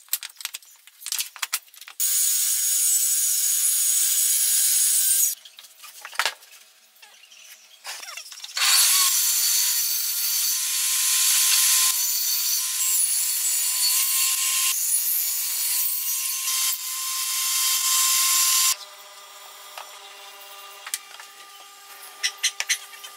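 Table saw cutting wood in two long stretches with a pause between, the second carrying a steady whine. Before, between and after the cuts come lighter knocks and clicks of wooden pieces being handled.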